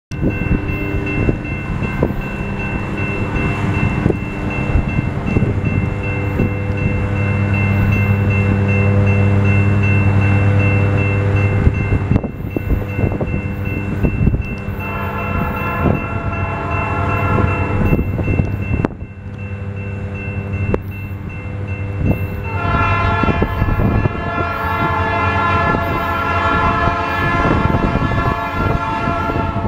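Approaching diesel freight locomotive: its engine rumbles steadily, louder in the first half. About halfway through its air horn sounds a blast of about three seconds, then a longer blast of about seven seconds near the end.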